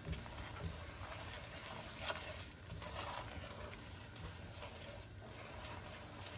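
A spatula scraping and patting a thick lentil paste around a nonstick wok as it roasts in butter, in soft, irregular strokes.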